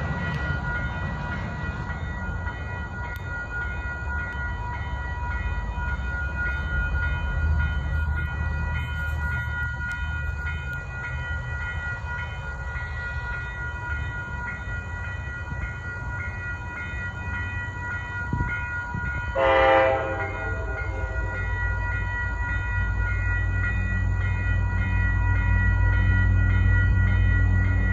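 EMD F40PH diesel locomotive approaching, its low engine rumble growing steadily louder over the last several seconds. About two-thirds of the way through there is a single short horn blast.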